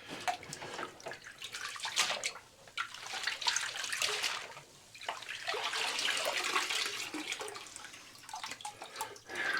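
Water splashing and trickling off wet electronic air cleaner cells and pre-filters over a tub of wash water. It comes in uneven bursts with short knocks from handling.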